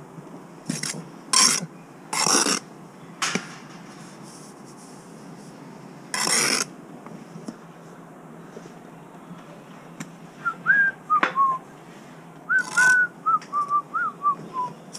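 A person whistling a short tune in brief, sliding notes over the last few seconds, after a handful of short scraping noises in the first half.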